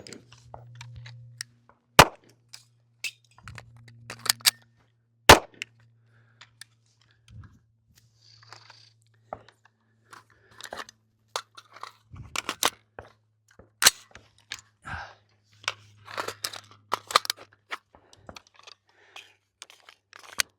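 Live-fire rifle-to-pistol transition drill: sharp gunshots a few seconds apart, the loudest right at the start, with clicks and rattles of magazine changes, slide and bolt work and holstering in between.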